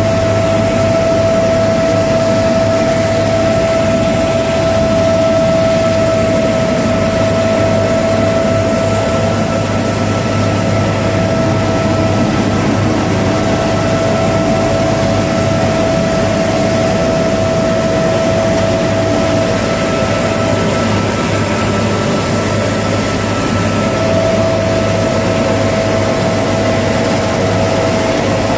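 Loud helicopter cabin noise heard with the side door open: a steady turbine whine over the deep drone of the engine and rotor. The whine's high note fades for a few seconds about three-quarters of the way through.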